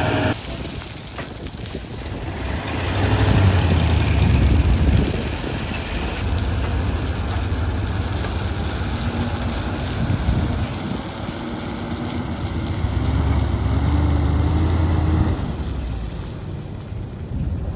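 Excavator's diesel engine running under working load, its rumble swelling and easing several times.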